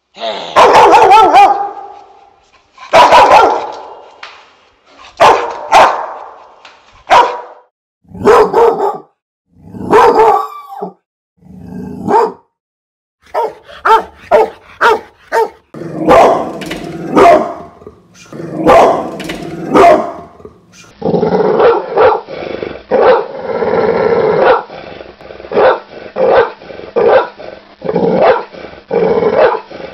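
Two Rottweilers barking and growling at each other as they tussle, in loud single barks with short pauses. Then a pit bull barks at a chain-link gate in quicker, more continuous volleys.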